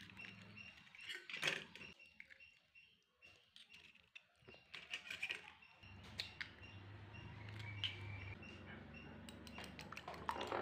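Eggs being cracked on the rim of a glass bowl, with faint shell cracks and taps, then a metal spoon beating the eggs and clinking against the glass in quick taps near the end. A faint low hum runs underneath in the second half.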